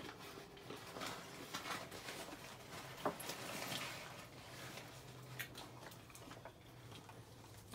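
Faint clinks and rustles of bottles and containers being handled on a small table, with a soft hiss swelling and fading about three seconds in.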